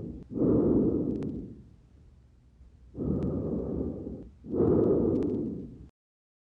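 Breath sounds through a stethoscope placed on the front of the chest, in a simulated auscultation after a pneumothorax: three low, airy breath phases of in and out with a few faint clicks, then the sound cuts off suddenly about six seconds in.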